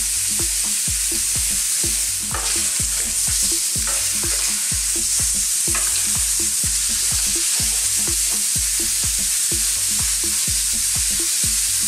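Marinated lamb chops sizzling hard in a dry ridged grill pan, searing in their own marinade juices with no added oil. A few sharp scrapes of metal tongs turning the chops on the pan. Under the sizzle runs a low, regular thudding about three times a second.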